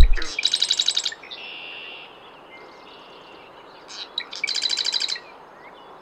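Marsh wren singing two songs. Each is a rapid trill of many repeated notes, the first right at the start and followed by a buzzy stretch, the second about four seconds in.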